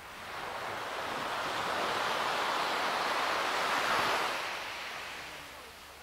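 Ocean waves on a shore: one wave surges in, building to its loudest about four seconds in, then washing back and fading.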